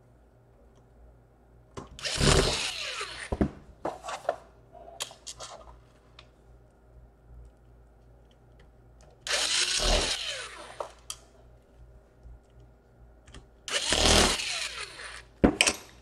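Cordless electric screwdriver run three times in short spurts of about a second each, its motor whine shifting in pitch as it drives small screws into a laptop chassis, with a few light clicks in between.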